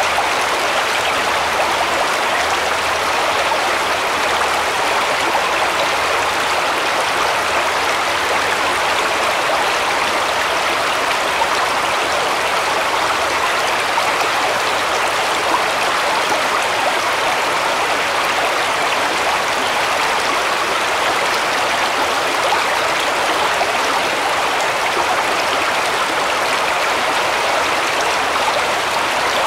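Shallow woodland stream running over stones and around fallen logs: a steady, even rush of water.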